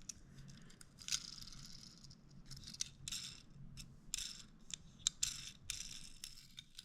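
Scattered light clicks, rattles and rustles of a die-cast toy car being handled, with its wheels and axles being tried.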